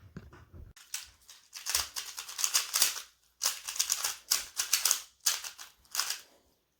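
Rubik's cube being turned quickly by hand: rapid clicking and clacking of the plastic layers in several bursts, with short pauses between them.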